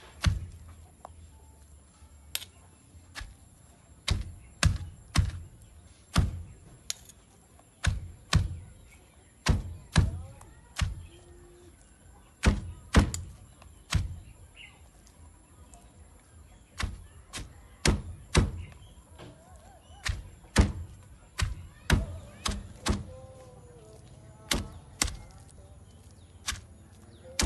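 Stone pestle pounding a paste of young tamarind and chilies in a stone mortar: dull, sharp thuds at irregular intervals, often in quick pairs, with short pauses between bouts.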